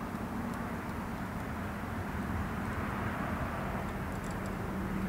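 A steady low rumble with a faint even hum running through it.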